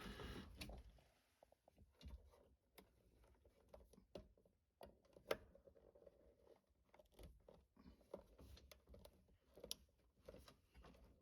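Near silence with faint, irregular clicks and small knocks of hands handling wiring and parts at a furnace control board.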